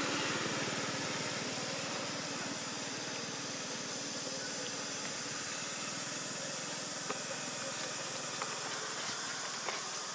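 Steady running engine noise of a motor vehicle, a little louder at the start, with a few light clicks in the second half.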